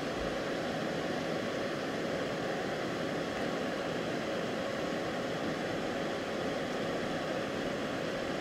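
Steady room noise: an even hiss with a faint constant hum. Nothing from the soldering stands out above it.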